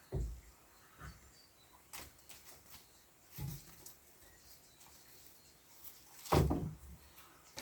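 Irregular dull thumps and knocks, about five in all, with the loudest one about six seconds in.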